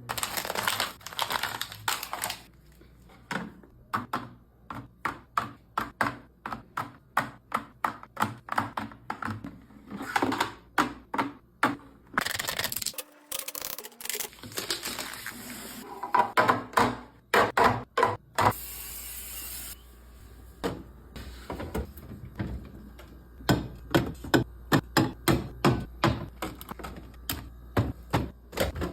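Many quick taps, clicks and knocks as containers and packaged food are handled and set down during fridge restocking, with a couple of brief hissing stretches in between.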